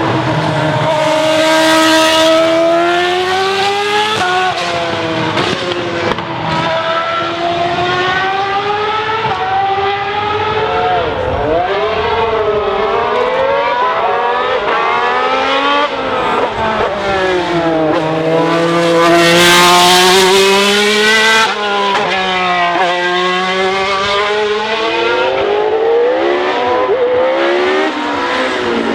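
Racing car engines revving hard as the cars run past one after another. The pitch climbs through each gear and drops at every shift, and it falls away as each car goes by.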